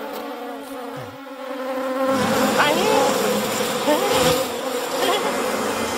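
A swarm of bees buzzing, swelling in about two seconds in and then holding steady.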